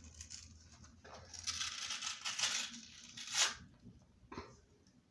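A rubbery moonball being torn apart: a rough, scratchy tearing from about a second in, loudest in a sharp rip about three and a half seconds in.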